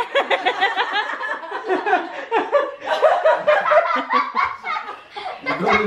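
People laughing, starting with a quick run of rapid laughs.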